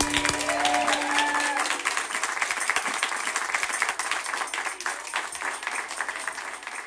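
A group of people clapping and cheering, with a few whoops in the first second or so, the applause gradually fading out.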